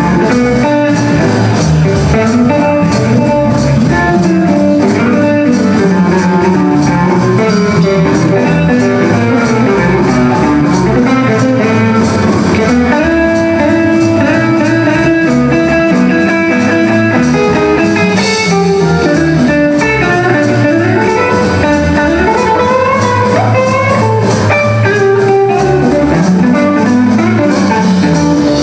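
Live blues band playing an instrumental stretch: an electric guitar takes the lead with bending notes, over bass and drums.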